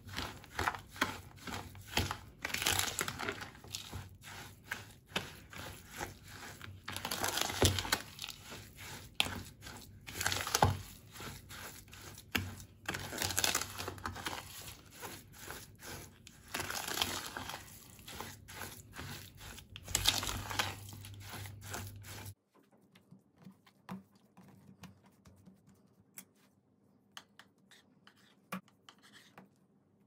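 Metal spoon stirring and scraping a thick poppy-seed paste around a plastic bowl, in irregular scratchy strokes with sharp clicks. The sound cuts off suddenly about two-thirds of the way through, leaving a faint room hum with a few small taps.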